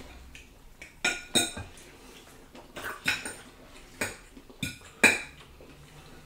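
Metal forks and spoons clinking and scraping against plates and serving dishes during a meal: about six short, sharp clinks with a brief bright ring, spread across the few seconds.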